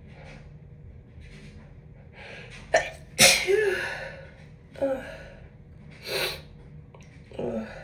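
A woman sneezing with a head cold: soft breaths build up, then a sharp catch and one loud sneeze about three seconds in. Three shorter bursts follow over the next few seconds.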